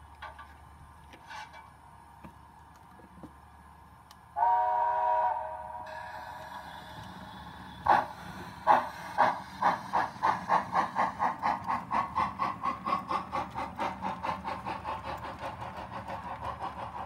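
Sound-equipped model steam locomotive: a whistle blast of about a second and a half, then exhaust chuffs that start slowly, quicken to a steady beat of about five a second and gradually fade as the train pulls away.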